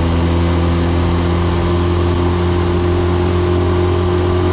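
Small outboard motor running at a steady high speed, driving the boat across the water: a loud, even low hum that holds the same pitch throughout.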